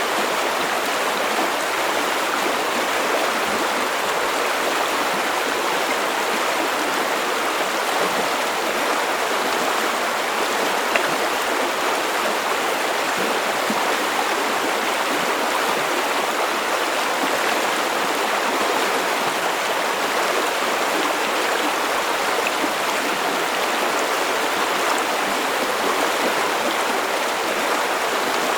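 River water flowing, a steady rushing babble with no breaks or changes.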